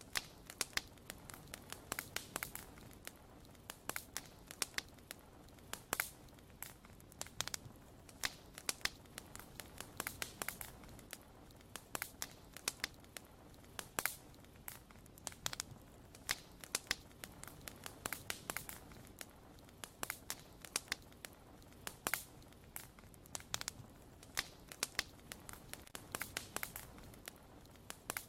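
Wood bonfire crackling: irregular sharp pops and snaps, several a second, over a low steady hiss.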